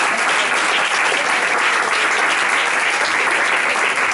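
An audience applauding, a dense steady clapping that holds at one level throughout.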